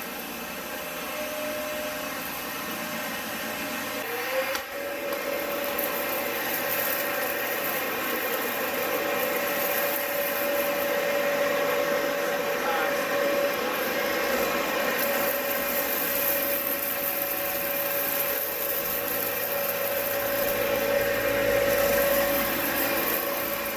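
Dyson ball upright vacuum cleaner running with a steady motor whine. About four seconds in, the pitch and level dip briefly and glide back up, then it runs on steadily and a little louder.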